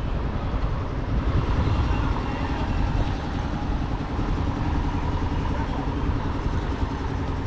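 Steady road-traffic noise with a low rumble, with voices in the background.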